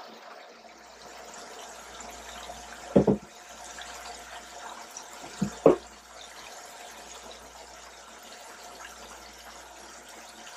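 Breaded catfish fillets deep-frying in hot peanut oil in a skillet, a steady sizzle. Two brief louder sounds break in, about three seconds in and again just before six seconds.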